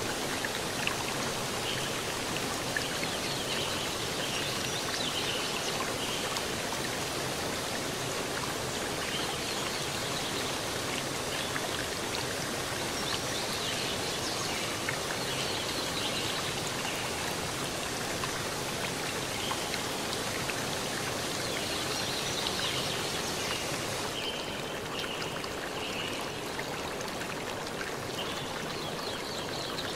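A steady rushing noise, like running water, with faint short high chirps scattered through it; its brightest, highest part dulls about three-quarters of the way through.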